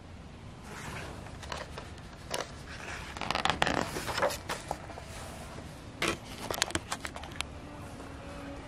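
Paper rustling and swishing as the pages of a picture book are turned, in two bunches of quick crinkles and slides, the loudest about three to four seconds in.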